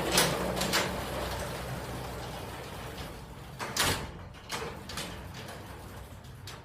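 Sectional garage door moved by hand along its tracks, disconnected from its opener for a balance check: a steady roller rumble that slowly fades, with sharp clanks near the start and about four seconds in.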